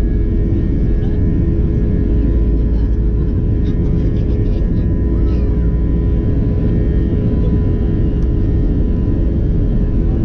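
Airbus A320-200 jet engines at takeoff power: a loud, steady rumble with steady whining tones held over it.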